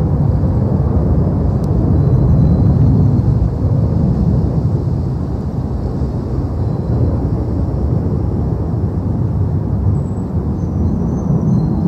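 Roar of a twin-engine F/A-18 jet fighter passing overhead: a loud, deep rumble that swells about two seconds in, eases a little, and swells again near the end.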